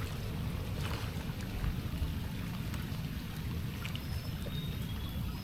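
Strong wind buffeting the microphone with a low, uneven rumble over a steady hiss of rain and water.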